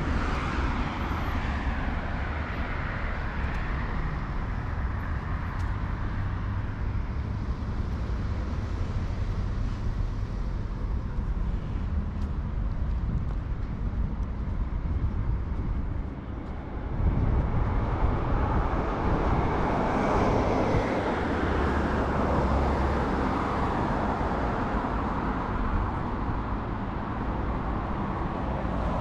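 City street traffic: cars and other vehicles passing, over a steady low rumble. Passing traffic swells near the start and grows louder again from about seventeen seconds in after a brief lull.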